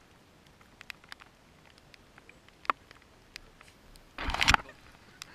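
Rustling and scattered small clicks close to the microphone, from the camera being brushed or handled. A louder, brief scraping rustle comes about four seconds in.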